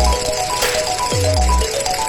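Background music with a steady beat: a bright melodic line of short notes over deep bass hits that drop in pitch, with a snare-like hit in between.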